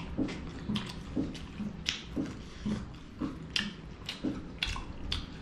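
People chewing food close to the microphone: wet smacking and crunching mouth sounds, irregular, about two or three a second.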